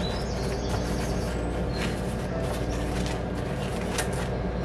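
A steady low hum runs throughout, with a few faint light clicks about halfway through and near the end.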